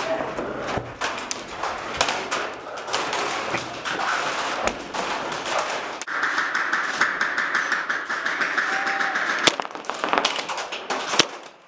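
Scattered sharp clicks and knocks, with a quicker run of clicks near the end: airsoft guns firing during a game.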